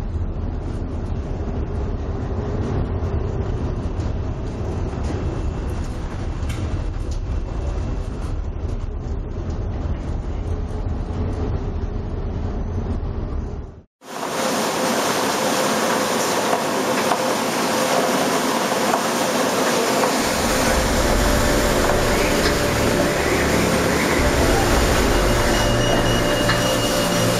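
Storm wind and heavy seas heard from aboard a ship's bridge, a deep steady rumble at first. About halfway through it cuts out for a moment and gives way to a louder, hissier rush of gale wind and spray.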